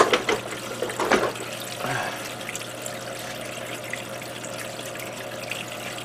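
Pumped water running in a sheet down the back panel of a waterfall spray booth: a steady trickling, splashing flow. Two short knocks come in the first second or so.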